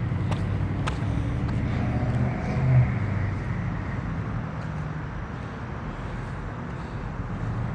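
A motor vehicle passes, its engine hum swelling to a peak about three seconds in with a rising tyre hiss, over steady low traffic rumble.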